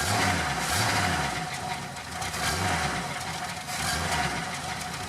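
1978 Ford Mustang II King Cobra's carbureted 302 (5-litre) V8 idling, heard at the exhaust. Its low rumble swells and fades unevenly, about once a second.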